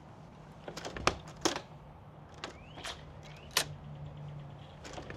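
Louvered flaps of exterior wall vent hoods clacking against their frames: several separate sharp clicks spread out over a few seconds, with a faint low hum in the middle.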